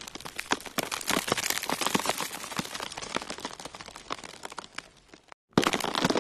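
Dense, irregular crackling and clicking with no music, cutting out briefly about five seconds in before starting again.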